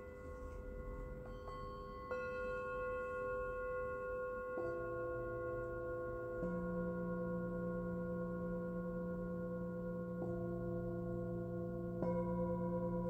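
Singing bowls struck one after another, a new one every two to four seconds, each with a sharp onset and a long ringing tone that overlaps the ones still sounding.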